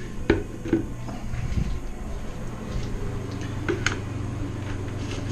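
A few light knocks and clicks of a large 3D-printed plastic bucket being handled, two near the start and a pair close together later, over a steady low hum.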